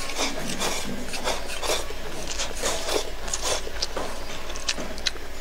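A person slurping noodles from a bowl and chewing: a run of short, irregular mouth sounds.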